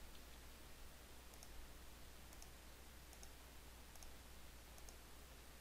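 Faint computer mouse clicks, each a quick double tick of press and release, about one a second, over a low steady hum.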